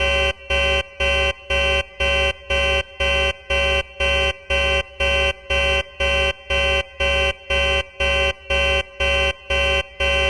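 Deep-toned buzzing ship alert alarm, a warning sound of the space-ship or navy red-alert kind, pulsing on and off about twice a second at a steady pitch.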